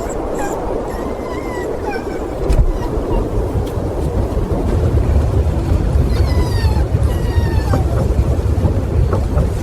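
A small injured animal whimpering in short high cries, with one longer falling whine about six seconds in, over a steady low rumbling noise that grows heavier a few seconds in.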